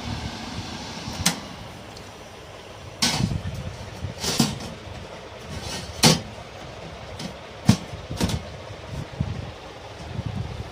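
Sharp metal clanks and knocks, about half a dozen spaced a second or two apart, as a small mobile-repair drying oven's perforated metal tray and shelves are handled and its door is swung, over a low steady rumble.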